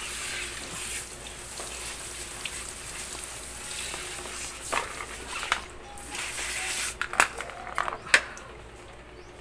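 Garden hose spray nozzle hissing as water sprays onto a small wet dog and the plastic grate beneath it, with a short break about five and a half seconds in. The spray stops about seven seconds in, and a few sharp knocks follow.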